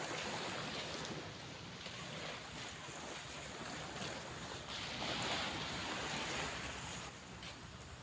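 Small sea waves washing onto the shore: a steady hiss of surf that swells and fades, loudest about five seconds in.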